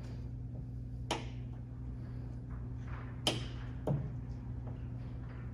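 Sharp clicks and light knocks of metal parts and tools being handled while fitting gas hood struts: three in all, about a second in, just past three seconds and near four seconds. A steady low hum runs underneath.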